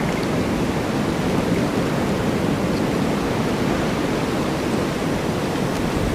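Cold winter wind of a snowstorm: a steady, dense rush of wind noise, even in level and deep in tone.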